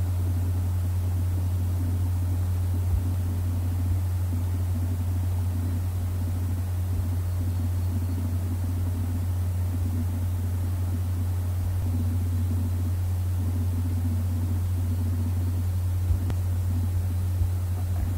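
Steady low hum of background noise on the microphone, with a few faint clicks.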